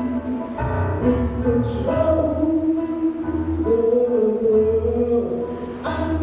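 A spiritual sung in long, held notes over instrumental accompaniment.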